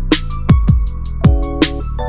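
Electronic background music with a steady beat: deep kick drums that drop in pitch, quick hi-hat ticks and held synth chords.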